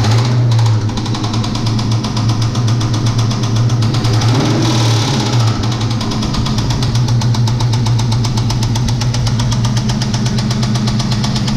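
1999 Mustang GT's 4.6-litre V8 running at idle with a loud, rapid, steady knocking: a hardcore rod knock, the sign of a failing bottom end, with metal flake in the oil.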